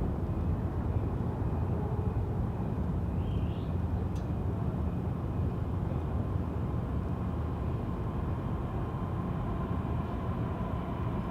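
Steady low rumble from an unidentified distant source, unchanging in level, with a faint high hum coming in over it in the second half.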